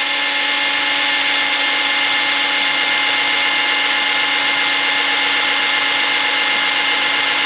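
Handheld electric drill running at a steady speed as it drills out the old rivets holding the brake linings to aluminium brake shoes: a steady, unchanging whine.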